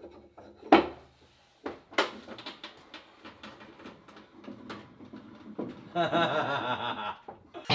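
Irregular knocks and clatter, as of wooden and metal parts being handled and set down on a workbench. About six seconds in, a short wavering pitched sound lasts a second or so.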